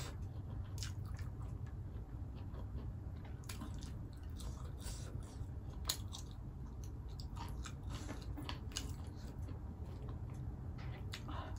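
Close-miked chewing of a mouthful of rice and pork curry, with many small wet mouth clicks and smacks and a sharper click about six seconds in, over a low steady hum.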